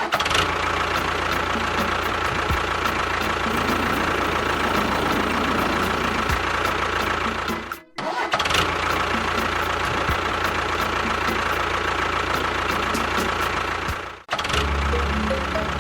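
A motor running steadily with a constant hum and whine, in two long stretches that each cut off abruptly, the first about eight seconds in. Music takes over near the end.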